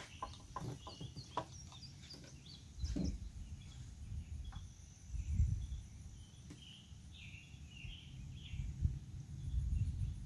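Outdoor ambience: wind buffeting the microphone in gusts, with birds chirping and a steady high tone. There are a few faint clicks in the first second or so.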